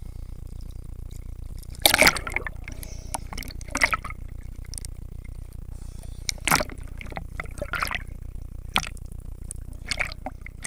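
Seawater sloshing and splashing against a waterproof camera at the surface of choppy sea, in short bursts every second or two over a steady low rumble, the camera then dipping under.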